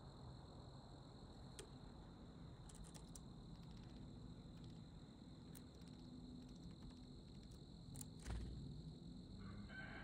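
Faint sharp taps and knocks of a white-breasted nuthatch landing on a wooden deck railing and pecking at pistachios, several scattered taps with the loudest knock about eight seconds in. A short bird call comes in near the end.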